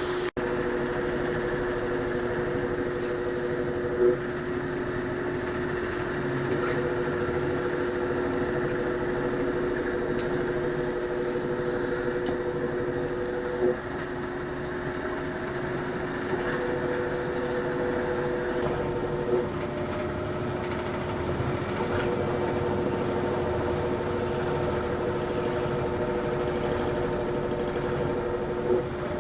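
Toshiba AW-404 fully automatic washing machine running with a steady mechanical hum and a constant pitched whine: the abnormal noise it makes after being carried lying on its side, which the owner thinks harmless. Four times a short louder jolt comes, each time a second, higher tone drops out or comes back.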